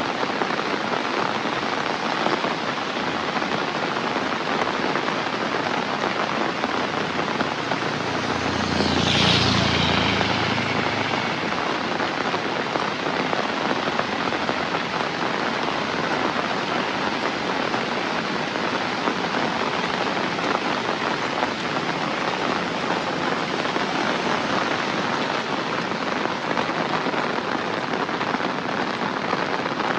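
Heavy rain falling steadily. About nine seconds in, a louder rumble swells and fades over two or three seconds.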